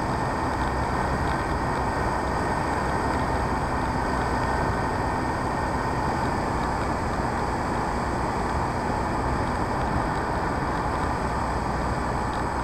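Onboard sound of a radio-control P-51D Mustang model in steady cruise: its motor and propeller running at a constant setting, mixed with wind rushing past the airframe. It stays steady throughout, with no change in throttle.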